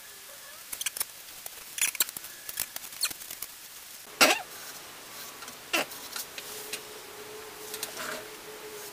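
Paintbrush bristles dabbing and scraping on corrugated cardboard in short, irregular scratchy strokes, with one louder stroke about four seconds in.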